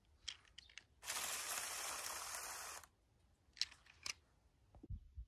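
Lego Technic tracked RC bulldozer driving through snow: a steady whirring hiss from its motors and tracks that switches on abruptly and cuts off after about two seconds, with scattered crunchy clicks around it and a low thump near the end.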